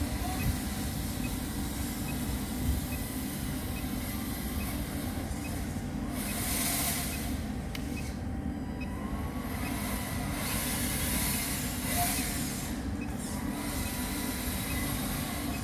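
RC 6x6 truck driving: a steady low rumble with a faint steady tone, and two spells of louder hiss about six and eleven seconds in.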